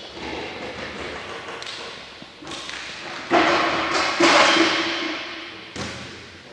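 Handling knocks and thumps on a large plywood horn speaker cabinet, five or so, each ringing on with a hollow tone and a long room echo; the two loudest come a little past the middle.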